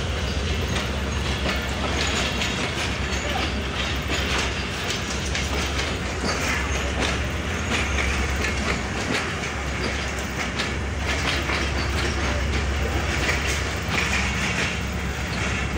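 Train wheels of a passenger coach rolling along the track, heard from the coach's open doorway: a steady rumble with rapid clickety-clack over rail joints and points.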